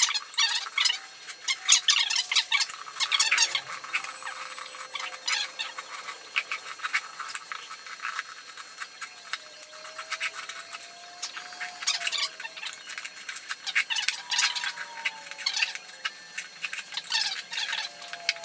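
Small lawn-tractor tire being mounted on its steel rim over an inner tube: rubber squeaking and scraping as the bead is pushed and levered over the rim edge, a busy run of small crackles and rubs with drawn-out wavering squeaks in the second half.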